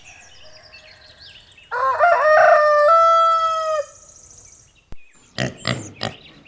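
Rooster crowing once, a loud cock-a-doodle-doo about two seconds long, with small birds chirping faintly before it. A few short, low calls follow near the end.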